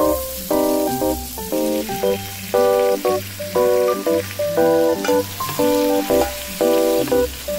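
Chopped onion, tomato and green bell pepper sizzling in hot oil in an enamelled pot as they are tipped in, an even frying hiss that starts at once, under background music of short repeated chords.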